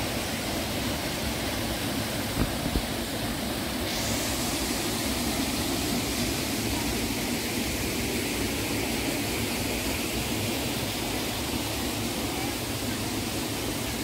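Steady rush of a waterfall: a continuous, even noise of falling water that grows a little brighter about four seconds in, with a couple of brief low bumps a little before that.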